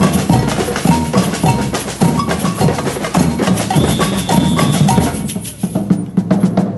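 Samba reggae drum ensemble playing a driving, steady rhythm of deep surdo bass drums under snare and other hand-played drums. The playing thins out and drops in level in the last couple of seconds.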